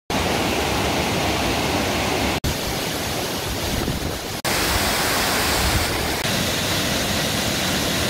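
Waterfalls pouring down rock into pools: a steady rush of falling water. It cuts out for an instant twice, about two and a half and four and a half seconds in, and changes slightly in tone after each break.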